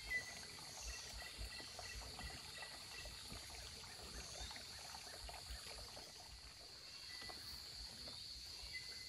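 Faint trickle of shallow water running over a rock slab, under a steady high-pitched hiss of insects.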